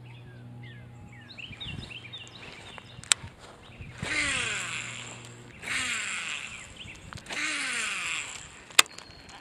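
Baitcasting reel whirring in three bursts of about a second and a half each, the pitch falling away within each burst, with a sharp click about three seconds in and another near the end.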